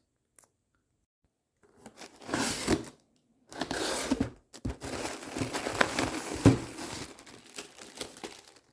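Packaging being torn open and crinkled around a newly arrived replacement power-supply board, in several bursts of rustling with a few sharp clicks.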